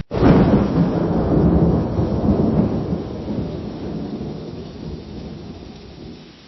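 Lightning strike: a sudden sharp crack just after the start, then rolling thunder that rumbles on and slowly fades away over about six seconds.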